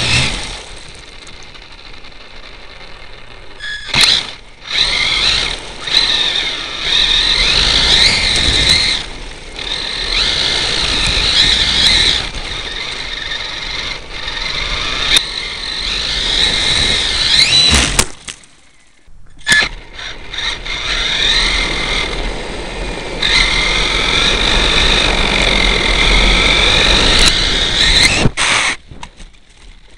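Brushless electric motor of an HPI E-Firestorm Flux RC truck whining, its pitch rising and falling as the truck speeds up and slows, over a rough rumble from the wheels and wind on the onboard microphone. The sound breaks off briefly three times: about 4 seconds in, from about 18 to 19.5 seconds, and near the end.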